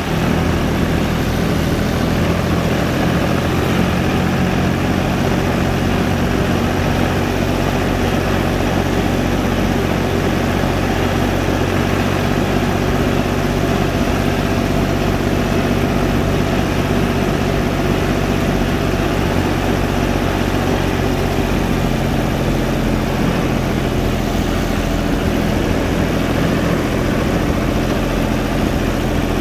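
UTB 445 tractor's diesel engine running steadily at a constant speed, with a slight change in its note about two-thirds of the way through.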